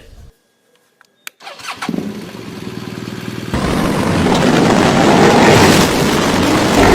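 A vehicle engine running, faint at first and then suddenly louder about three and a half seconds in, after a couple of short clicks.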